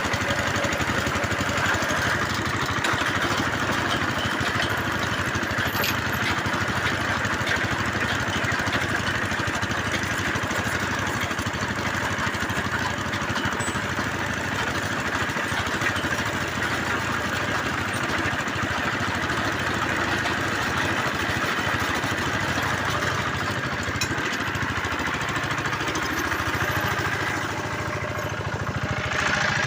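Engine of a bore-well drilling rig running steadily, with a slight dip in loudness near the end.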